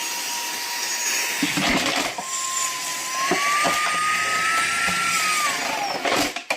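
Palm-sized handheld vacuum cleaner with a brushless motor running with a high whine and suction rush, its pitch stepping up about halfway and falling away near the end as it winds down. A few short clicks and rattles, typical of debris being sucked up, sound in the middle.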